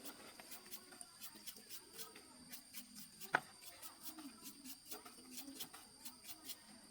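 Faint, irregular light clicks and taps, several a second, with one sharper click about three seconds in, over a faint steady high-pitched whine.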